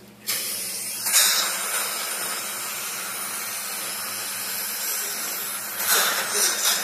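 Dental suction tip hissing steadily as it draws air and fluid from the mouth. It switches on abruptly just after the start and swells louder about a second in and again near the end.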